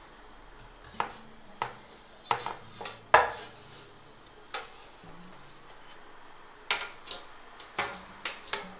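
Metal serving tray and glass baking dish knocking and clattering as the dish is turned over onto the tray: about a dozen sharp clanks, the loudest a little after three seconds in.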